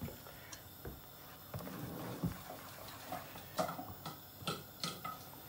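Metal ladle stirring thin pancake batter in a stainless steel bowl, with soft scraping and a few light clinks against the bowl, the sharper clinks in the second half.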